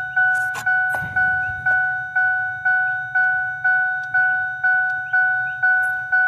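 1996 Ford Explorer's warning chime dinging steadily, about two dings a second, each a bright two-tone ding that fades before the next. A couple of sharp clicks and a thump come about a second in.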